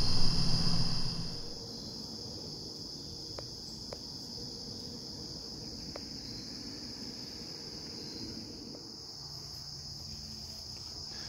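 Steady high-pitched chorus of insects in the woods, with a few faint ticks. A louder low rumble fills the first second or so and then drops away.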